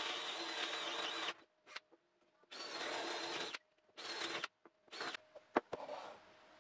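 Handheld electric drill boring a hole through plywood, running in one long burst and then three shorter bursts that each stop abruptly. A single sharp knock near the end.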